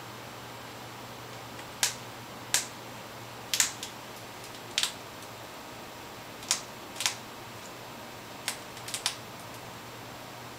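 Citron-crested cockatoo nibbling a food pellet with its beak: sharp, irregular crunching clicks, about a dozen, some coming in quick pairs and threes.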